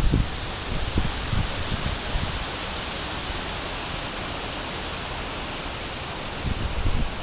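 Strong wind rushing through a ginkgo tree's leaves, a steady hiss. Wind buffeting the microphone drops away at the start and returns near the end.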